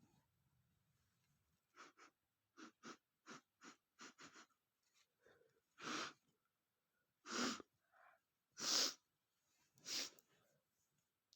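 A man's short, sharp breaths in quick succession, then four hard sneezes about a second and a half apart, the third the loudest. The sneezes are brought on by sniffing red pepper.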